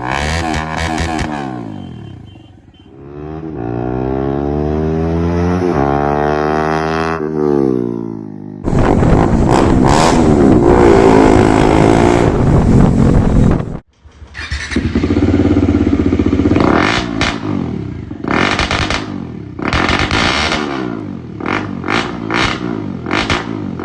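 Bajaj Dominar 400's single-cylinder engine running with no exhaust silencer, loud and raw. It starts with quick throttle blips, then the revs rise and fall through a long pull, and a very loud stretch cuts off abruptly. A run of short, sharp revs about once a second follows to the end.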